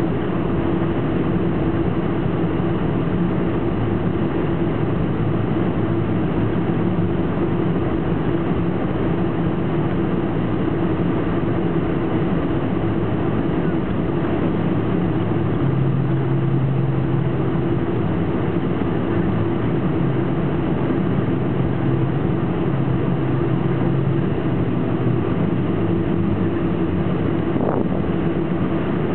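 Boeing 747-400 heard from inside the cabin while taxiing: a steady engine hum and rumble with a few steady low tones.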